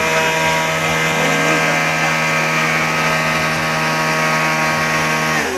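A model aircraft's brushless electric motor spins its propeller at a steady speed, making a steady many-toned whine. The pitch changes just before the end.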